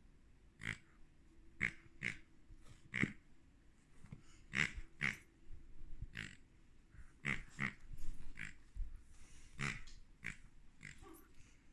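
A latex pig squeaky toy squeezed again and again, giving a dozen or so short, faint oinking squeaks at irregular intervals.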